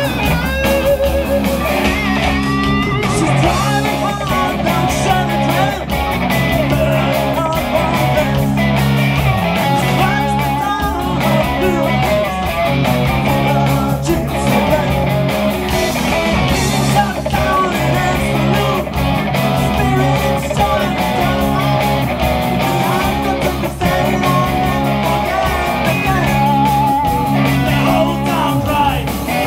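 Live rock band playing through a PA: electric guitars and drum kit, with singing.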